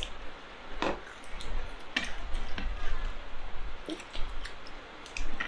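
Close-up eating sounds of people eating chicken biryani with their hands: squishy chewing and mouth noises, with a handful of sharp clicks and light knocks from fingers and plates.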